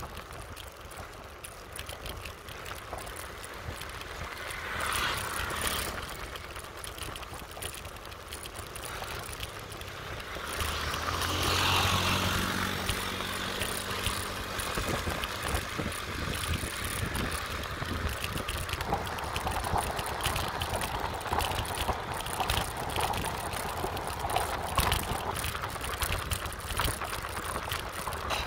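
Riding on a motorbike: wind rushing over the microphone with the bike's engine running beneath it. About ten seconds in, a louder engine sound swells for a few seconds, then settles back to the steady rush.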